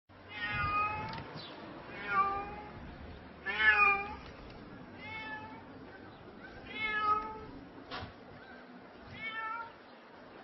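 Pregnant cat in labour that cannot deliver her kittens, meowing in distress: six separate drawn-out cries a second or two apart, the third the loudest. A single sharp click comes about eight seconds in.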